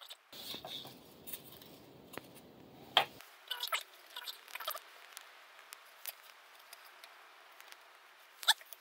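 Light clicks and scratches of thin steam-bent wooden strips being handled and fitted together, with one sharper click about three seconds in.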